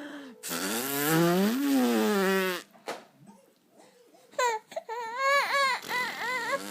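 A baby crying in short, wavering wails about four seconds in. It is preceded by a lower, drawn-out vocal call that rises and then falls in pitch.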